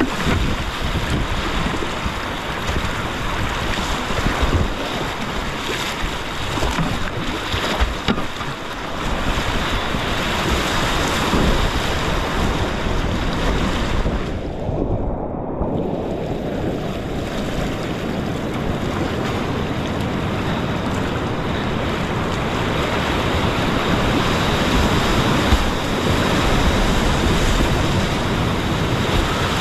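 Whitewater creek rapids rushing loudly and steadily around a kayak, with water and wind buffeting the camera microphone. About halfway through the sound goes muffled for a second or two, then the full rush returns.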